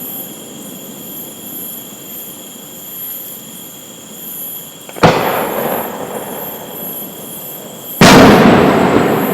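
Fireworks shells bursting in the air: two sharp booms about three seconds apart, each followed by a rolling rumble, the second rumbling longer.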